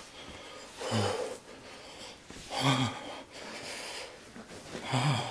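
A man breathing out hard through the mouth, three voiced breaths about two seconds apart, each falling in pitch. He is panting against the chili burn of the Paqui One Chip Challenge chip.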